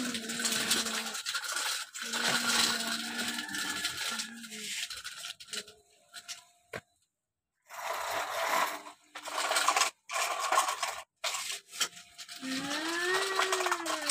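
Gritty scraping and rustling of a plastic toy dump truck pushed over sandy ground, with sand sliding out as its bed is tipped, broken by a short pause about halfway.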